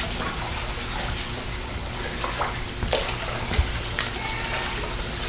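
Water splashing and sloshing in a steady wash, with a few faint knocks or small splashes about once a second.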